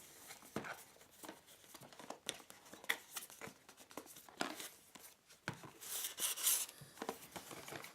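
Packaging sleeve being slid off a cardboard box by hand: scattered light taps and handling rustles, with a longer scraping slide about six seconds in.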